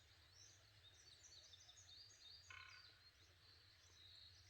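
Faint, near-silent forest morning: small birds chirping, one short buzzy call midway, and a low continuous pulsing drone underneath that the speaker takes for a wild boar snoring as it sleeps on the mountain.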